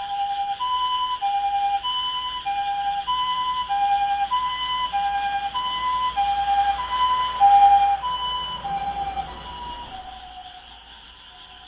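Ambulance two-tone hi-lo siren, switching back and forth between two notes about every half second. It grows louder to a peak about two-thirds of the way through, then falls slightly in pitch and fades as the ambulance passes.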